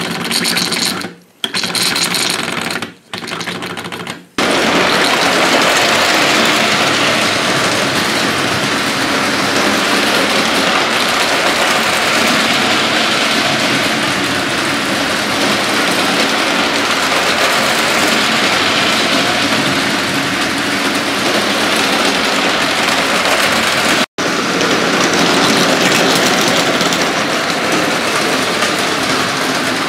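Spirit-fired Gauge 1 Carette 'Storkleg' tinplate live-steam locomotive running with tinplate coaches on track: a fast, steady chatter of steam exhaust and wheels on the rails, with hiss. The sound breaks off briefly several times in the first few seconds, then runs on steadily.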